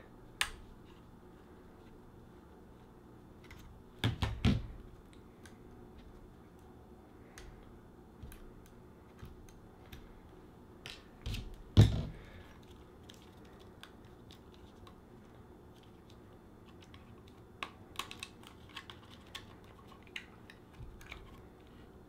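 Light clicks and taps from a screwdriver working on a laptop hard drive and its metal tray as the tray screws come out. There are louder knocks about four seconds in and near the middle, and a run of small clicks near the end.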